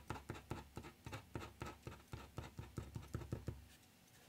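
Quick hatching strokes of a black pen on paper, a fast, even run of short scratches at about five a second that stops about three quarters of the way through.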